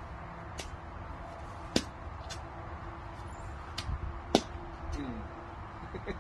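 Toy plastic golf club striking plastic balls and the grass: sharp plastic clacks, two loud hits about two and a half seconds apart among several lighter taps, over a steady low hum.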